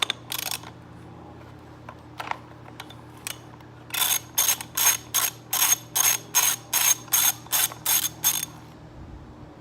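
Socket ratchet clicking as a 15 mm nut on a string trimmer's exhaust fitting is unscrewed: a few separate clicks, then from about four seconds in a quick regular run of about a dozen ratcheting strokes, two to three a second, stopping near the end.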